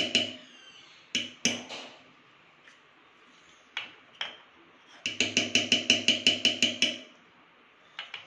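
Metal spoon tapped quickly and repeatedly against the rim of a steel bowl to knock off melted chocolate, each tap ringing briefly. A run of taps at about six a second ends just after the start, a few single clinks follow, and a second run lasting about two seconds comes about five seconds in.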